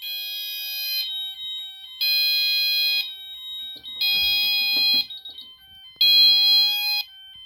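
Fire alarm sounders going off after a manual call point is activated: a high-pitched electronic tone pulsing one second on, one second off, with a fainter steady tone between the pulses.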